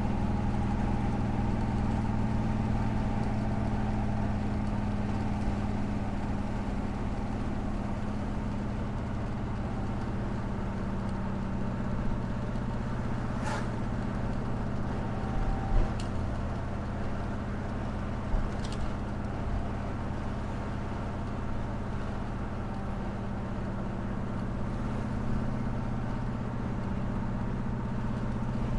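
A 1979 Chevrolet Corvette's V8 with dual exhaust, heard from inside the cabin as a steady engine drone while the car is driven. A few brief sharp clicks come about halfway through.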